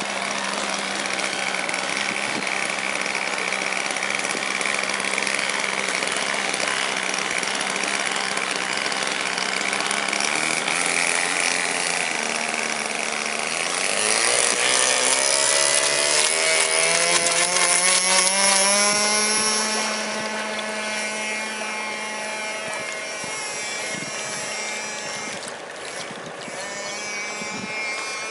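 Radio-controlled floatplane's motor and propeller running with a steady buzz, then rising steeply in pitch from about ten seconds in as it is throttled up for the takeoff run across the water, loudest just before it lifts off. It then holds a high steady pitch, somewhat quieter, as the plane climbs away.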